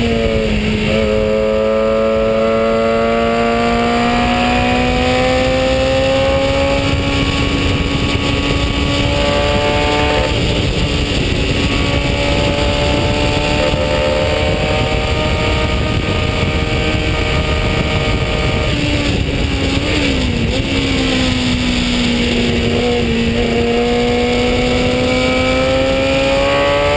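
Onboard sound of a 1965 Brabham BT15's 1-litre Formula 3 engine at racing revs, a high, buzzing note over the rush of wind in the open cockpit. The note drops as the engine comes off the throttle at the start, then climbs slowly and holds, with a short break and a dip in revs about twenty seconds in before it climbs again.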